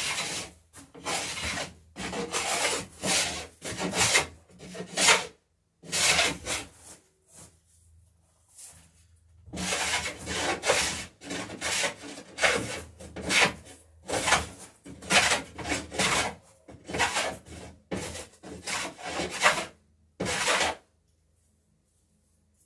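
Hand plane cutting a bevel along the edge of a wooden garboard plank, in repeated short strokes about two a second. The strokes pause for a few seconds about a third of the way in, then stop near the end.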